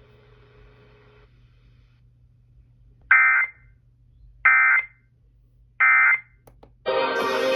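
Three short Emergency Alert System end-of-message data bursts (SAME "NNNN"), each a loud electronic chirp under half a second long, coming about a second and a half apart from the radio, marking the end of the weather radio alert test. Music starts near the end.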